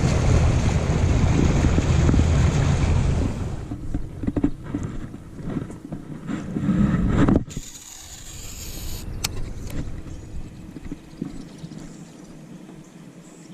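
Boat under way, its motor running under heavy wind rush on the microphone. The sound fades and then cuts off abruptly about seven seconds in. Quieter water and boat noise follows, with a few light knocks.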